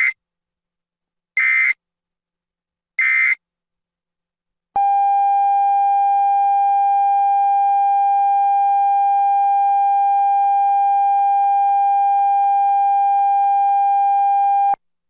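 Emergency weather alert signal: the end of one short screeching digital data burst and then two more, about a second and a half apart, then a single steady alert tone held for about ten seconds that cuts off suddenly.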